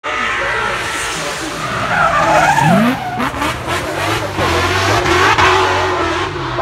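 Race car engine revving hard, its pitch rising and falling through gear changes, with a run of sharp cracks about three seconds in.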